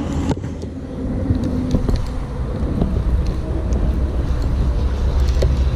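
Steady low rumble of highway traffic, swelling slightly about a second in, with a few faint ticks over it.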